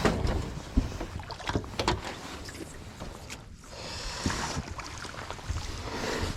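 Knocks and bumps on a fishing boat as a crappie is landed with a landing net. About two thirds of the way through, a rushing noise rises under the knocks.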